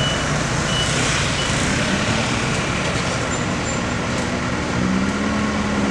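Kobelco SK200 excavator's diesel engine running steadily at close range, with a low hum that comes up louder about five seconds in.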